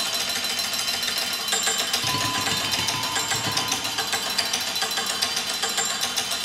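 Steel sound sculptures (large steel bowls) struck with sticks in a rapid, dense stream of strokes, rattling steadily over ringing metallic tones.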